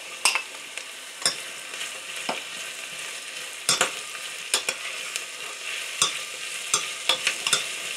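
Onion, garlic and chopped drumstick pods sizzling steadily in hot oil in a pressure cooker, while a steel spoon stirs them, clinking and scraping sharply against the pot about a dozen times.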